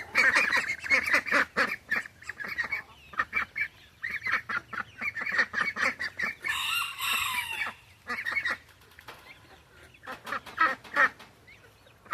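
A flock of chickens and ducks calling: rapid runs of short, repeated calls, with one longer, higher call about six and a half seconds in.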